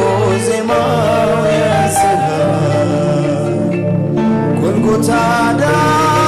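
A man singing an Amharic gospel song (mezmur) with held, sliding notes over a backing band.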